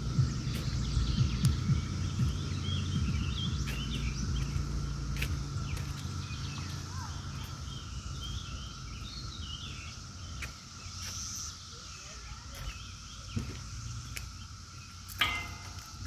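Steady distant drone of a periodical cicada chorus, with songbirds chirping over it. A low rumble on the microphone fades over the first half, and a short sharp sound comes near the end.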